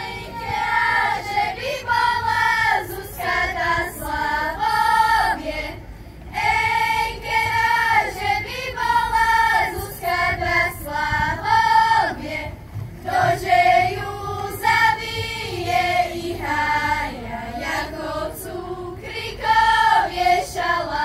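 A girls' choir singing a Slovak folk song in unison, voices only, in sung phrases with short breaths between them.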